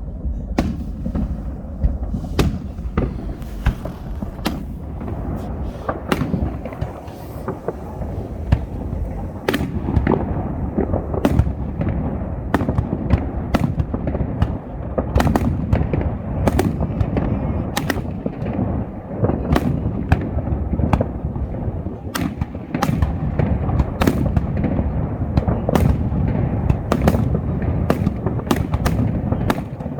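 Aerial fireworks show: a continuous run of sharp bangs over a dense low rumble of booms, the bangs coming more thickly after about ten seconds.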